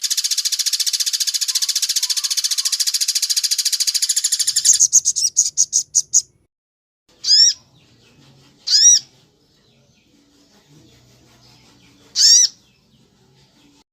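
Songbird calls from a bird-song training recording. A fast, shrill trill slows about five seconds in into a short run of separate notes and stops. Three short, shrill calls follow a second or more apart.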